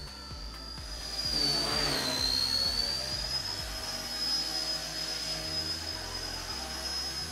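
Micro electric RC helicopter flying, its motor and rotors giving a steady high whine. The pitch dips briefly about two seconds in, then settles a little higher, while the rotor noise swells as it flies.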